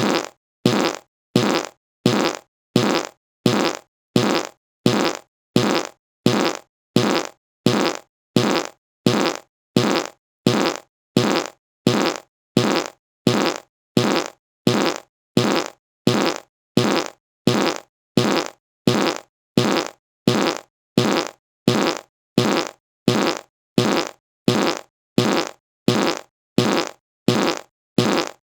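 A fart sound effect repeated over and over, about three every two seconds, each one short and dying away quickly.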